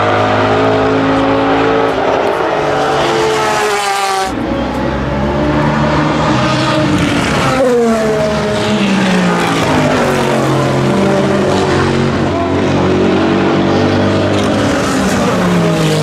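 Loud race-car V8 of the NASCAR Next Gen Chevrolet Camaro ZL1 running hard as the car passes, a naturally aspirated pushrod V8. The engine note breaks off suddenly about four seconds in and then falls in pitch in long glides near eight seconds and again near the end.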